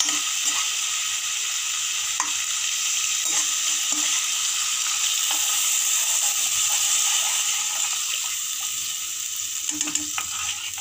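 Onion and cashew paste sizzling as it fries in hot oil and masala in a kadai, with the occasional scrape and tap of a steel slotted spoon stirring it. The sizzle eases slightly near the end.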